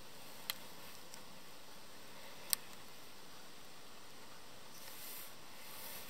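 Steady faint hiss with two short sharp ticks, about two seconds apart, the second louder.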